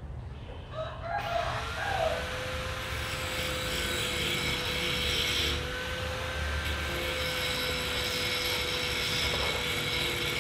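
Steady machine noise: an even hiss with a constant tone under it, starting about a second in and holding level.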